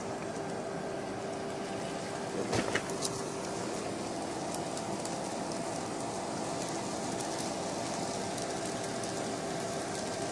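Fleischmann N-scale model trains running on the track: a steady electric motor hum with a faint whine, and a few small clicks about two and a half seconds in.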